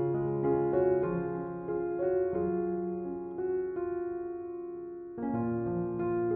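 Gentle background piano music, a slow run of single notes over sustained chords.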